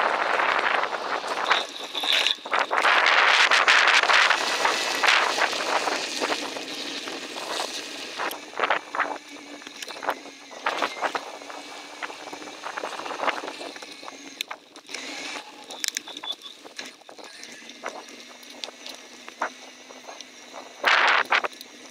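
Bicycle riding along a woodland dirt trail: wind on the microphone and tyre noise, loudest in the first few seconds and then easing, with frequent clicks and rattles from the bike over the ground.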